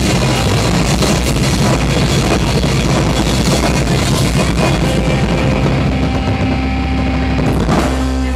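Live rock band playing loudly with electric guitars, bass and drum kit. About five seconds in, the busy drumming gives way to held, ringing notes, and there is one heavy hit near the end.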